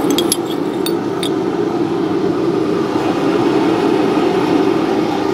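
A few light metallic clinks of small steel tiles, cut from broken sword blades, being set down on an anvil in the first second or so. Under them runs a steady mechanical drone from shop equipment.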